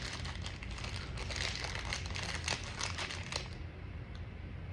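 Plastic toy wrapper crinkling and rustling as it is torn open and the toy pulled out, stopping about three and a half seconds in.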